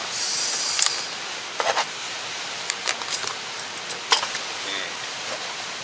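Metal tongs clicking and a plastic zip-lock bag crinkling as meat slices are put into it, a few separate clicks and rustles over a steady background hiss.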